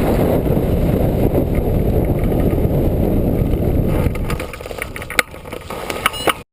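Strong wind buffeting the microphone, a dense low rumble that eases off about four seconds in. A few sharp clicks and knocks follow before the sound cuts off abruptly.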